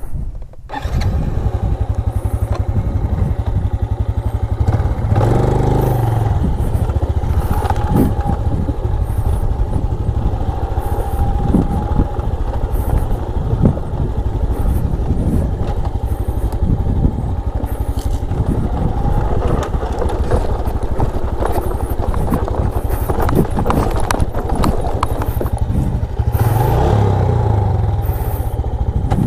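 Motorcycle engine running while being ridden, its revs rising and falling a couple of times.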